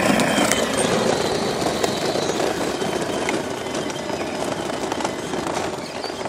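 12-volt Power Wheels Stinger XS ride-on rolling on asphalt: a steady rumble from its plastic wheels and electric drive, slowly getting quieter as it drives away.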